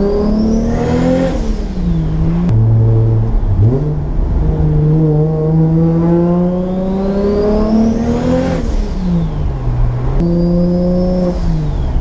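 Turbocharged 2JZ-GTE engine heard from inside the cabin, pulling hard under full throttle: the revs climb with a high whistle rising along with them, then fall at each gear change with a burst of hiss. One pull ends about a second in, a long one builds from about four seconds to about eight and a half, and a shorter one runs from about ten seconds until just before the end.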